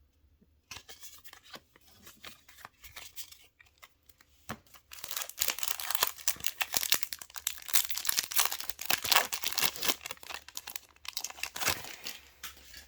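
Foil trading-card booster pack wrapper being torn open and crinkled: light rustling at first, then a dense stretch of crackling from about five seconds in that fades out near the end.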